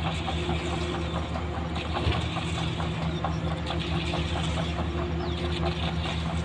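A construction vehicle's engine running steadily at a constant speed.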